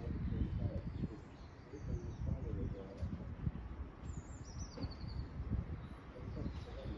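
Wind buffeting the microphone in irregular gusts, with small birds chirping; a short falling trill comes about four seconds in.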